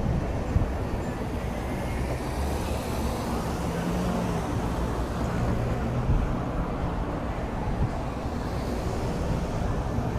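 Steady street traffic noise: cars and other vehicles passing on a busy boulevard, a continuous low rumble.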